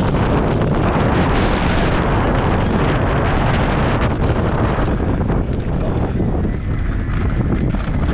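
Heavy wind buffeting the microphone of a camera on a moving electric mountain bike: a steady, loud low rumble that eases slightly past the middle.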